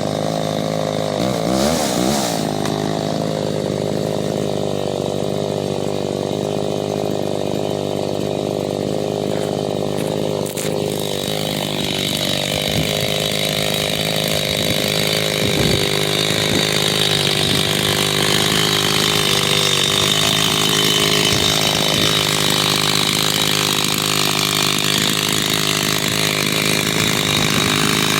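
Stihl 025 two-stroke chainsaw running steadily at low speed, with a brief blip of the throttle about two seconds in.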